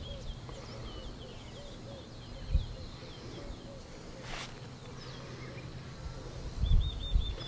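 Faint, repeated short chirping calls of birds, some low and some high-pitched. A low thump comes about two and a half seconds in and a cluster near the end, with a brief click just past four seconds.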